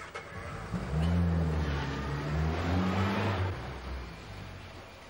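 Small car engine of a Mini revving as it pulls away, rising about a second in, wavering up and down, then fading after about three and a half seconds.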